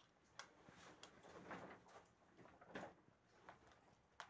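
Rabbits eating dry food pellets from a plastic bowl: faint crunching and scratchy rustling of pellets, with a few sharp clicks, one about half a second in and one near the end.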